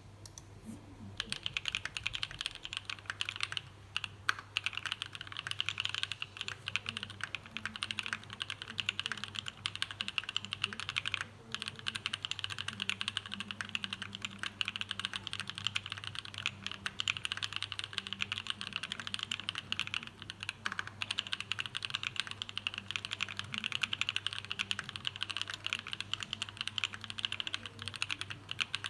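Continuous fast typing on a custom plateless 60% mechanical keyboard with C3 Tangerine switch housings, NK Cream stems and O-rings under the keycaps: a dense run of key clacks that starts about a second in, with short pauses around four and eleven seconds. A faint steady low hum lies underneath.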